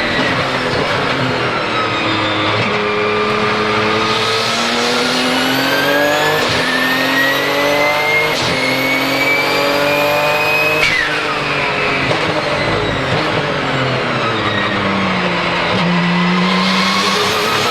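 Twin-turbo 3.9-litre flat-six of a Porsche 997 GT2 RSR heard from inside the cockpit, accelerating hard through two quick upshifts of the sequential gearbox with a rising turbo whistle. About eleven seconds in the throttle is cut sharply and the revs fall as the car slows, before it pulls hard again near the end.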